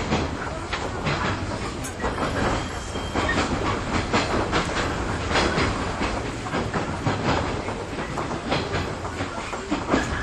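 Running sound heard inside a JR 415-series electric train car: a steady rolling rumble with irregular clicks and clacks as the wheels pass over rail joints.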